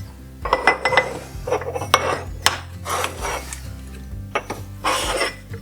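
Travertine tiles clinking and scraping against each other as they are handled and sorted, in several short bursts of clacks and rubbing, with light background music underneath.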